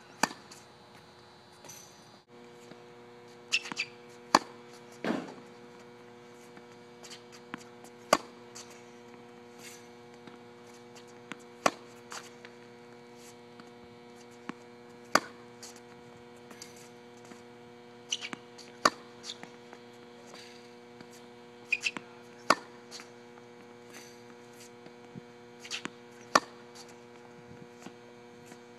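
Tennis groundstrokes: a sharp pop of the racket striking the ball every three to four seconds, often just after a softer knock of the ball bouncing on the hard court. A steady electrical hum runs underneath.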